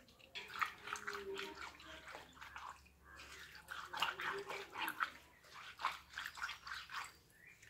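Wet hands rubbing and sliding small fish over a wet stone slab in quick, irregular strokes, with the splash and squelch of washing water, as the fishes' silvery coating is scraped off.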